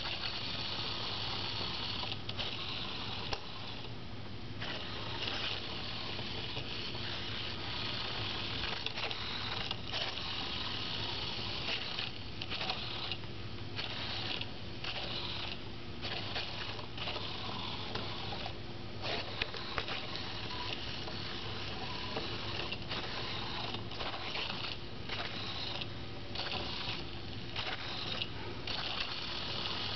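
Pololu 3pi robot's small gearmotors whirring as it drives along a line. The whir cuts out and restarts many times in brief stutters as the robot stops and corrects to centre on the line.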